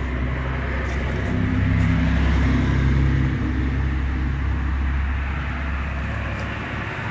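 Low rumble of a motor vehicle's engine, swelling a little about two seconds in and then slowly fading, like a vehicle passing or idling nearby.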